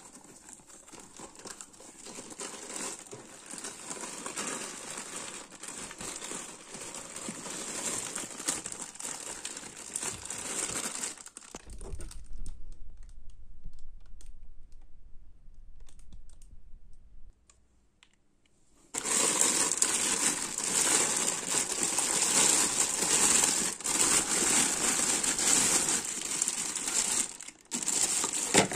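Hands pulling open a heavily taped, battered cardboard box, a long stretch of crinkling and rustling. About halfway through there are several seconds of only a low rumble and a short quiet. Then a clear plastic bag crinkles loudly as a small desk fan is unwrapped from it.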